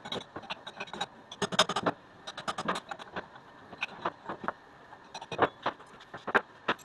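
Steel spanners clinking against a CNC router spindle's collet nut and being set down on the machine bed while the router bit is changed: a scatter of sharp metallic clicks and clanks.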